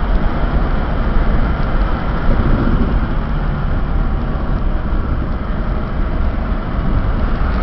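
Steady car cabin noise while driving down a mountain road: engine and tyre rumble heard from inside the car.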